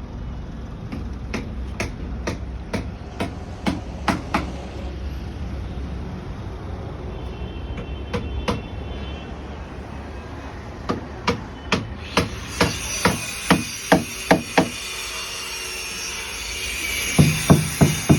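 Hammer blows in a carpentry workshop, about two a second, in several runs with pauses between and a quicker flurry near the end, over background music.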